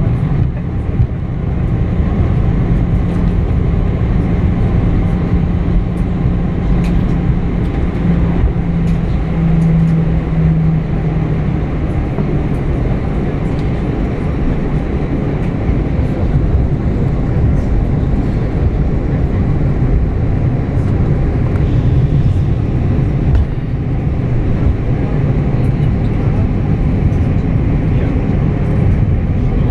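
Airliner cabin noise during the landing rollout: a loud, steady rumble from the engines and the wheels running on the runway. A low hum is strong for the first ten seconds or so, then fades as the plane slows.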